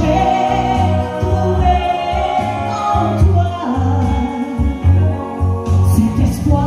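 A woman singing live into a microphone over amplified backing music with a pulsing bass line.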